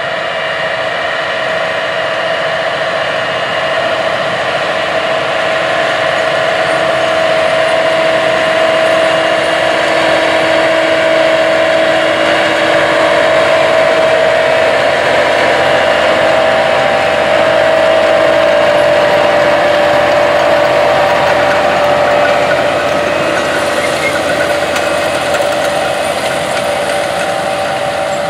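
John Deere 9520RX track tractor's diesel engine running steadily under load as it pulls a 36-row DB90 corn planter, with a steady high whine over it. It grows louder toward the middle and eases off near the end.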